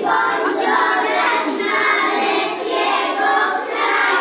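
A group of children singing together, many young voices holding sustained notes.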